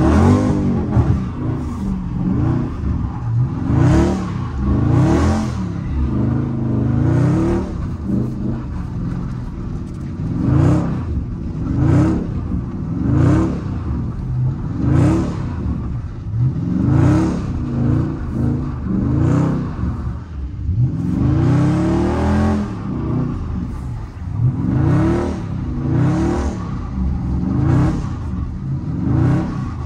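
Dodge Charger Scat Pack's 6.4-litre HEMI V8 revving up and falling back again and again, every second or two, as the car is slid around on wet pavement with the wheels spinning, heard from inside the cabin.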